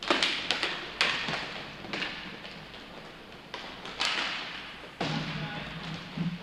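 Irregular sharp knocks and thuds from inline hockey play, each trailing off in an echo: the puck and sticks striking each other and the rink boards.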